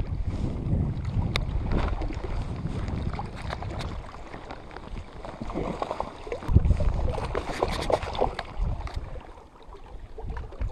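Wind gusting over the microphone in uneven swells, with scattered small clicks and rustles from handling a landing net at the water's edge.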